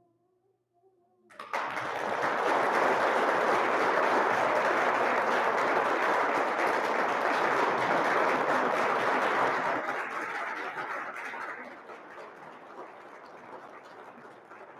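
Audience applauding in a church. A choir's last held chord dies away, there is a second of silence, then clapping breaks out together, strong for about eight seconds before it thins out.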